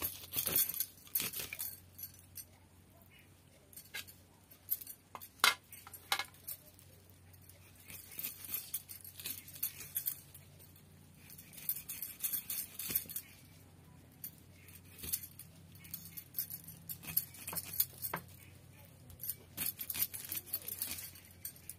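Stacked bangles on both wrists jingling and clinking in irregular bursts as the hands work, with occasional sharp clicks from a knife cutting the rind off a pineapple.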